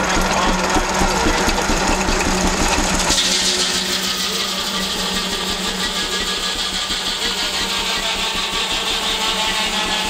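1923 Frick Eclipse steam traction engine running under belt load, driving a sawmill: a steady mechanical beat with the hiss of steam. About three seconds in, the steam hiss becomes much louder.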